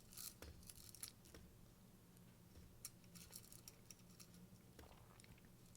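Faint scattered clicks and light rattles of a cuckoo clock's chain being fed through the movement, over a faint steady hum.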